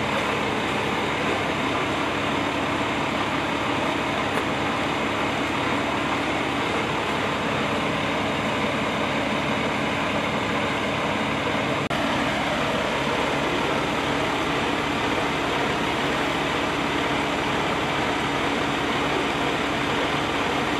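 Steady, loud drone of emergency vehicles' engines idling, with a constant low hum and a slight change in the rumble about twelve seconds in.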